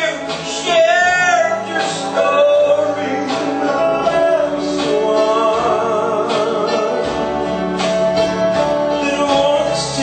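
A man singing a gospel song into a microphone over instrumental backing, his held notes wavering with vibrato.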